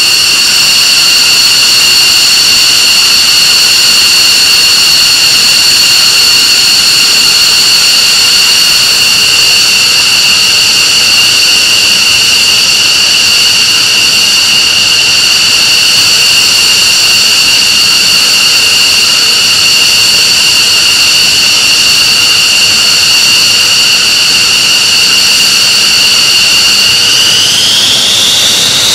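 F-15C Eagle's twin Pratt & Whitney F100 turbofans running at taxi power: a loud, steady, high-pitched whine. The whine rises in pitch near the end.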